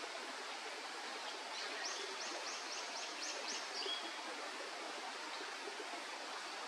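Eurasian wren singing a short phrase of about eight repeated high notes, about four a second, ending in a brief lower note, over a steady background hiss.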